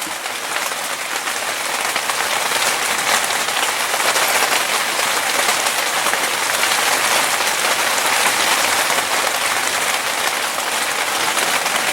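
Water from a small aquaponics waterfall feature splashing steadily into a koi tank, making a continuous hiss.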